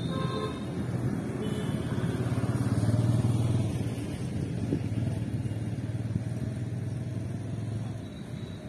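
TVS Apache motorcycle engine running as the bike rides past two-up. It is loudest about three seconds in, stays steady, then fades near the end.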